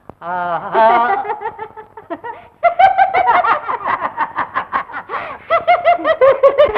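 A woman laughing heartily in quick, rhythmic peals of several pulses a second, loudest from about two and a half seconds in.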